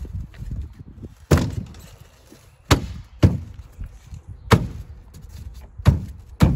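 Hands knocking down on the top of Nudura ICF foam blocks to seat their interlocking teeth onto the course below: six sharp thumps at uneven intervals.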